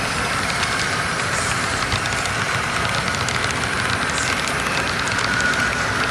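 Model freight train cars rolling past on the track: a steady rolling noise of small metal wheels on the rails with light rapid clicking.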